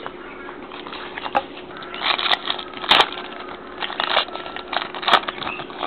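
Trading cards and a pack's wrapper being handled: rustling with scattered sharp crackles and clicks, busiest in the middle, over a faint steady hum.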